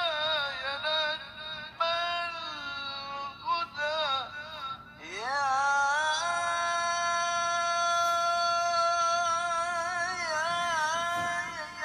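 A male qari reciting the Quran in the melodic tilawah style through a handheld microphone. Ornamented, wavering phrases lead into a steep upward sweep about five seconds in, then a long high note held steady for about four seconds, a show of breath control, before the voice ornaments again near the end.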